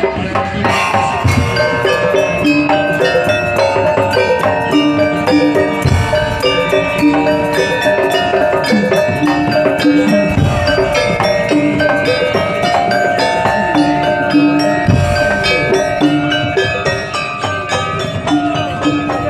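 Madurese daul music: a percussion band playing a fast run of pitched struck notes over a steady beat, with deep bass drum hits at intervals.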